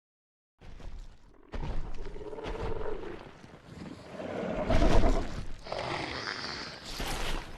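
Skullcrawler monster film sound effects: a run of rough growls and roars starting about half a second in, the loudest about five seconds in, with a higher screech near the end.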